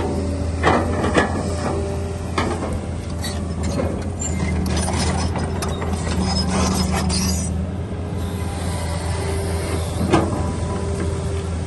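Excavator working, its diesel engine running with a steady low drone under irregular metallic clanks and clicks from the machine.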